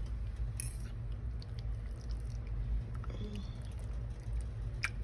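Steady low hum with a few light kitchen clicks, the sharpest near the end, and a brief murmur of a voice about three seconds in.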